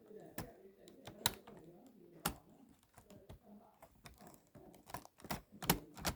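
Irregular sharp clicks and taps, a few much louder than the rest, over a faint low murmur.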